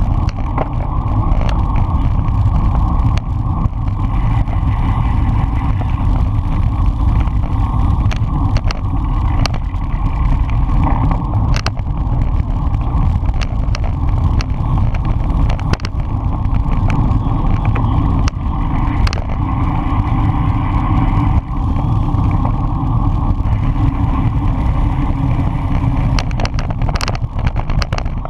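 Steady wind rush and road rumble on a bike-mounted camera's microphone as the road bike rides at speed, with occasional sharp clicks.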